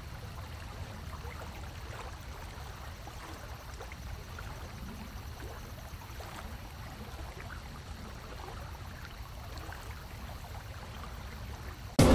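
Steady low hum and rumble with a faint hiss. Music comes in abruptly right at the very end.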